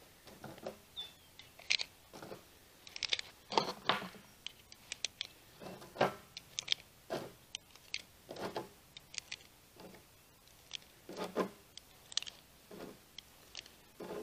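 Footsteps crunching on gravel, irregular, about one or two a second.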